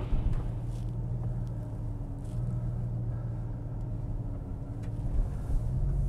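Porsche 911 (996) flat-six engine running at low revs through a new Evox stainless-steel exhaust, heard from inside the cabin as the car moves off slowly. A steady low drone that rises slightly near the end.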